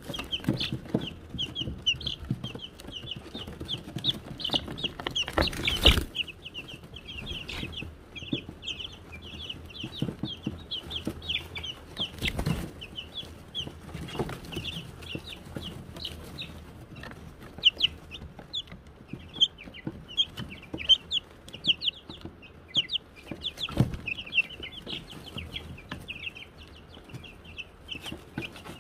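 A brood of Wyandotte chicks peeping without pause, many short high cheeps overlapping. A few brief thumps come through, about six seconds in, around twelve seconds and near the end.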